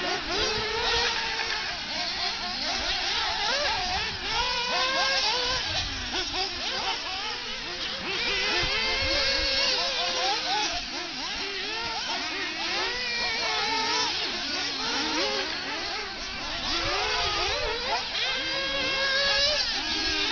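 Several 1/8-scale RC buggies racing, their motors whining at high revs, several pitches at once, each rising and falling as the cars speed up and slow for turns.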